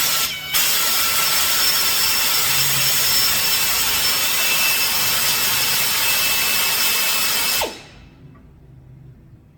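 Die grinder running with a loud hiss and a faint steady whine as it works a hole. It drops out for a moment near the start, runs steadily for about seven seconds, then shuts off.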